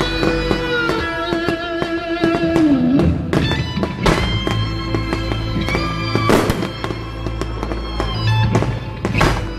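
Fireworks bursting over loud show music, with several sharp bangs cracking through the melody, the biggest about six and nine seconds in.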